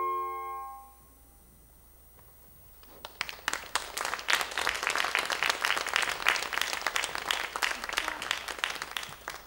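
The final held chord of a saxophone ensemble dies away within the first second. After a short hush, the audience breaks into applause that continues to the end.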